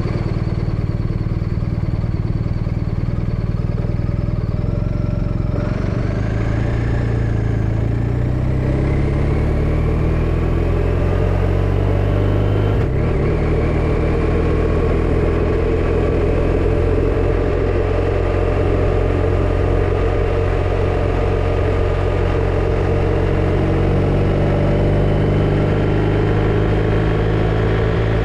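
BMW R 1250 RT motorcycle's boxer-twin engine running, steady at first and then accelerating, its pitch rising for several seconds. Near the middle it drops suddenly as it shifts up a gear, then climbs slowly again.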